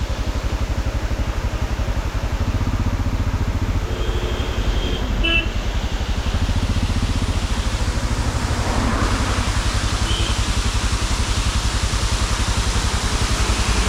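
Motorcycle engine running at a steady cruising speed with a fast, even low pulse, heard from on the bike while riding. A few short high tones sound about four to five seconds in.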